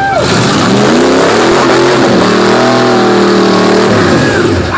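Rock bouncer buggy's engine revving hard under load on a steep rock climb. Its pitch climbs over about two seconds, holds at high revs, then drops near the end, over a broad hiss.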